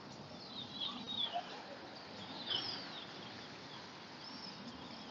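Birds calling by a city lake: a few short, high chirping calls that glide up and down, heard faintly over a low background hum.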